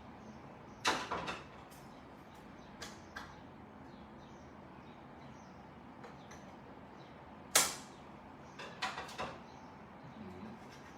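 Scattered clicks and knocks of small hard parts and tools being handled during hands-on repair work. There is a short cluster about a second in, the sharpest click past seven seconds, and a few more right after it.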